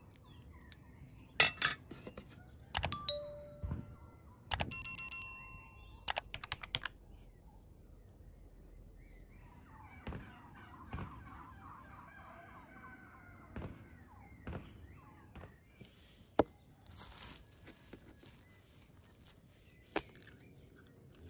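Metal spoon clinking against an enamel bowl and dish while scooping meat filling: a few sharp clinks in the first several seconds, two of them ringing on briefly. Soft handling knocks follow.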